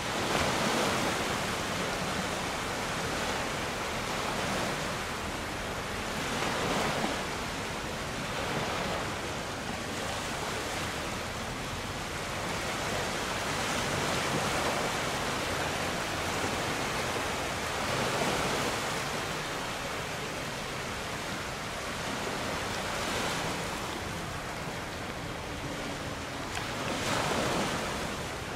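Sea water washing and splashing, swelling in surges every few seconds, with wind noise underneath.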